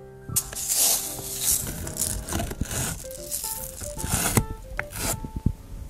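Dry brown rice grains rustling and hissing in several swishes as a measuring cup is scooped through them in a paper rice sack and poured, over light background music.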